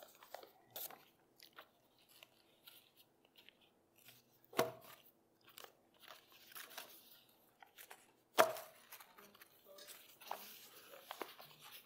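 Quiet rustling of paper sheets and small handling clicks. Two sharp knocks come about four and a half and eight and a half seconds in.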